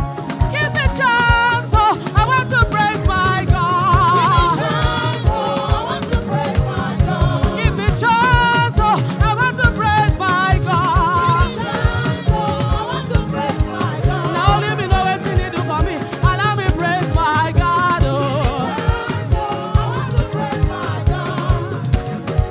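Gospel praise music from a church choir: voices singing with vibrato over a steady drum beat and bass.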